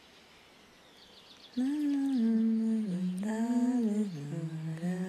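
A woman humming a slow tune with her mouth closed, holding long notes that step up and down. It starts about a second and a half in.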